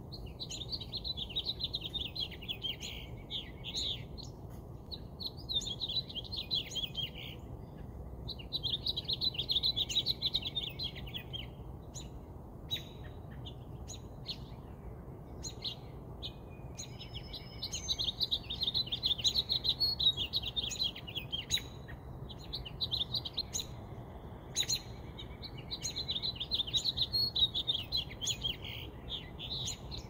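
A flock of cedar waxwings calling: bursts of rapid, high chirping trills a couple of seconds long, repeating every few seconds over a faint low background rumble.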